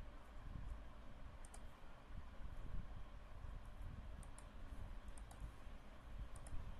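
Computer mouse clicking, a few quick pairs of faint clicks, over a low steady background rumble.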